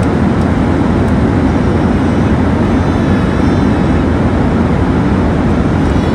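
Steady low engine and air noise inside an airliner cabin, an even hum without change.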